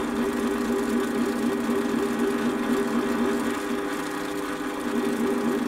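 Warco metal lathe running at a steady speed, its motor and headstock giving a steady hum with several held tones.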